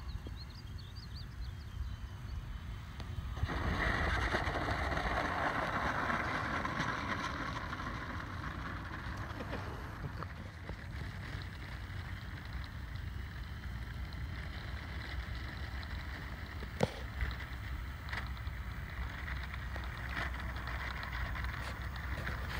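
Wind buffeting the microphone, then about three and a half seconds in a sudden rushing, rolling noise starts as the Avios C-130 RC model touches down and rolls along rough, cracked asphalt with its propellers turning. It is loudest just after touchdown and eases off as the model slows to a taxi, with a single sharp click later on.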